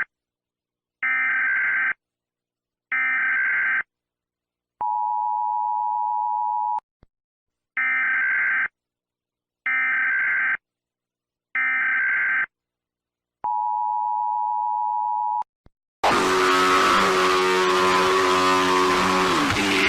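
Emergency Alert System tones: three one-second bursts of SAME digital header data, then about two seconds of the steady two-tone attention signal, the whole sequence played twice. About sixteen seconds in, a loud, harsh, noisy sound with several held pitches cuts in.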